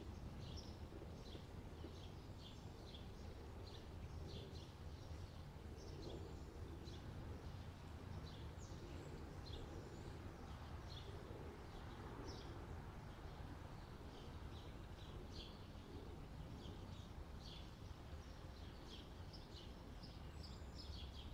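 Faint birdsong: many short, high chirps scattered throughout, over a steady low rumble of background noise.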